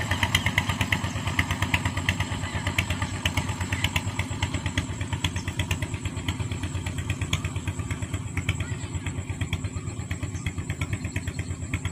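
An engine running steadily with an even, pulsing beat of about five or six pulses a second.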